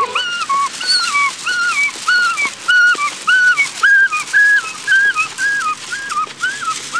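A person imitating an ambulance siren with their voice, a high-low "wee-oo" repeated about twice a second, for a make-believe ambulance.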